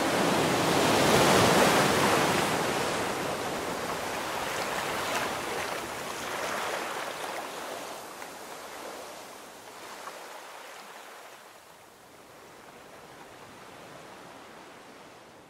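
A hiss-like wash of noise with no clear tones, loudest about a second and a half in, then slowly fading away.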